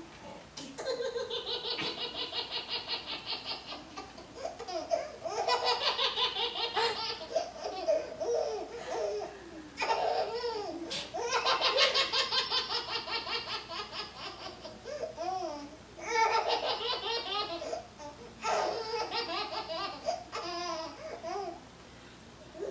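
A baby belly laughing uncontrollably: several bouts of rapid, pulsing high-pitched laughter with short breaths and pauses between them.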